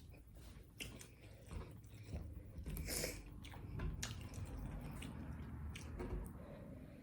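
Close-miked chewing and biting of a taco: wet mouth clicks and smacks, with a louder crunchy bite about three seconds in.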